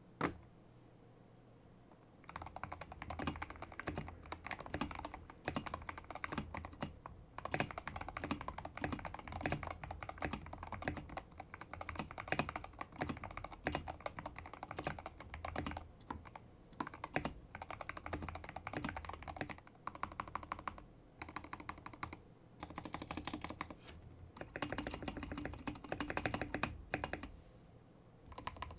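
Typing on a Tester 68 mechanical keyboard with lubed milky Gateron Yellow Pro linear switches and PBT keycaps. Fast runs of keystrokes begin about two seconds in after a single click, broken by a few short pauses.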